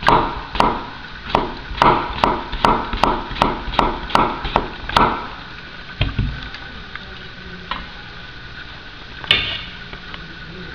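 Chef's knife slicing a cucumber on a wooden cutting board: about a dozen quick, crisp knocks of the blade on the board over five seconds, then the chopping stops. A brief clatter follows near the end.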